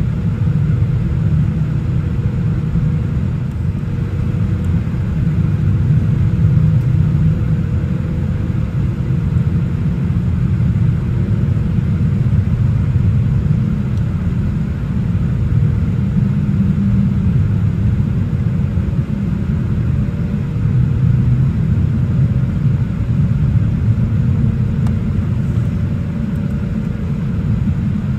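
Passenger-cabin noise of a Boeing 787-8 Dreamliner: a steady low rumble with a faint steady hum above it.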